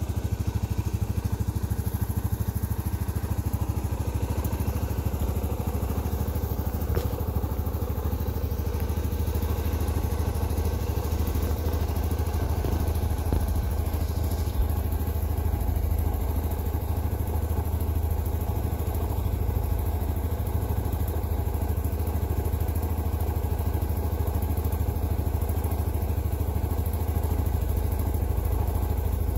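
2007 Yamaha Grizzly 700 ATV's single-cylinder engine idling steadily.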